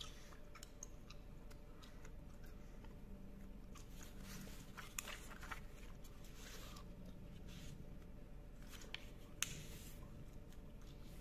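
A sheet of paper being handled and folded by hand: faint rustling swishes and a few sharp creasing taps, over a low steady hum.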